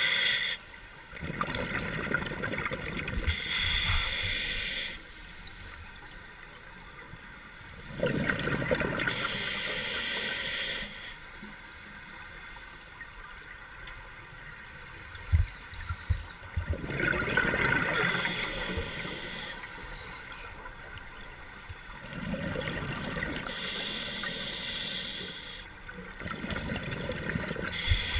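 Scuba diver breathing through a regulator underwater: exhaled bubbles gurgle in five bursts of two to four seconds each, with quieter inhalation gaps between. A couple of short low knocks come about halfway through.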